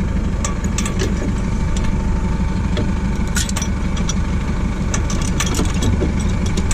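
Tractor engine idling steadily, with a few light clicks and knocks scattered through it.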